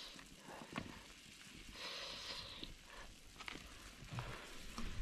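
Scattered light clicks of chopsticks against a cooking pot while fishing for food, with a soft hiss around the middle.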